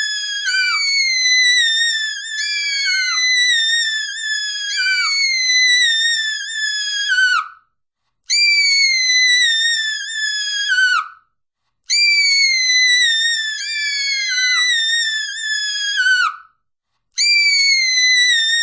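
Female screaming sound effect: short, high-pitched screams, each falling in pitch, repeated about once a second in runs broken by three brief silences.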